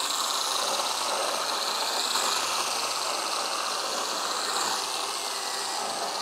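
Einhell GE-PS 18/15 Li BL cordless brushless pruning chainsaw running steadily while cutting through wood, its motor pitch dipping and rising with the load. It stops about six seconds in.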